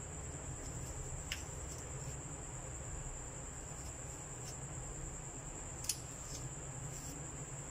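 A steady high-pitched trill runs under a low hum, with a few light clicks as a kitchen knife handles and cores peeled apples, the sharpest about six seconds in.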